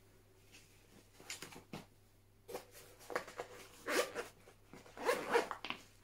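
Nylon Maxpedition Fat Boy shoulder bag being opened and handled: a few faint clicks at first, then rough rustling and scraping of the fabric and flap as things are pushed into a front pocket.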